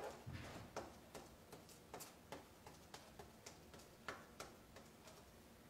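Faint, irregular taps and light scrapes, about two or three a second, of a small glue brush dabbing glue onto a paper cutout.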